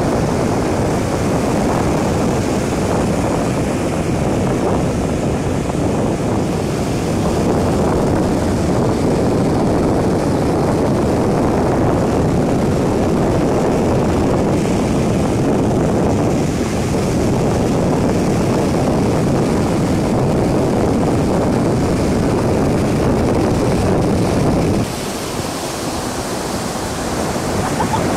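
Surf washing onto a sandy beach with heavy wind rumble on the microphone. Near the end the low rumble lessens and the hiss of the waves stands out more.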